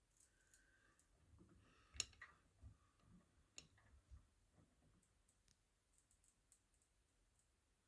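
Near silence with scattered faint clicks from a Miele washing machine, a sharper click about two seconds in and another near the middle, with a few soft low knocks between them.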